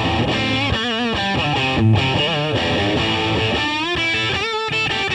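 Electric guitar played through a Laney LC50-112 all-valve 1x12 combo with 6L6 output valves and a Celestion 12-inch speaker: single-note lead phrases with wide vibrato on held notes, about a second in and again near the end.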